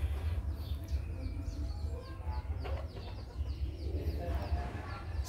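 Red junglefowl clucking softly while foraging, mixed with many short, high chirps, over a steady low rumble.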